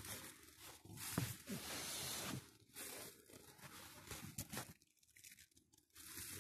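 Faint rustling and crackling with a few soft knocks, then a second or so of near quiet past the middle.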